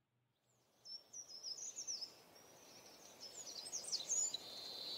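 Faint songbird chirping and twittering, a run of quick high notes over a soft hiss, growing louder toward the end.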